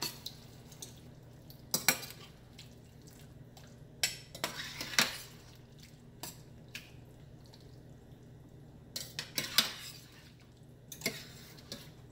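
Metal spoon stirring thick curry in a stainless steel pot, scraping and clinking against the pot's sides and bottom in irregular strokes.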